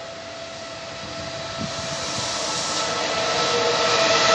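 Trenitalia E464 electric locomotive and its train approaching, growing steadily louder. A steady electric traction whine of several tones rides over rising wheel-on-rail noise.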